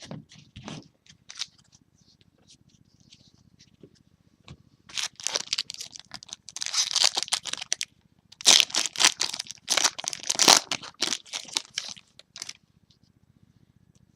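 A trading-card pack's foil wrapper being torn open and crinkled, in two long rustling stretches in the second half, after a few light clicks and handling sounds.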